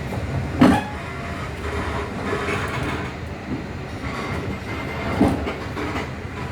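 KA Malabar passenger train running, a steady rumble with two sharp knocks, one about half a second in and one about five seconds in.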